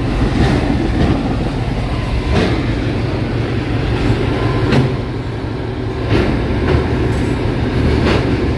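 White 8900 combine's diesel engine and machinery running close alongside, a steady low rumble with a clank or knock every second or two.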